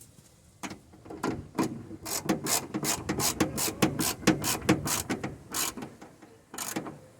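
Hand ratchet clicking in quick strokes as a bolt is turned, a series of sharp clicks that come faster and closer together in the middle and thin out near the end.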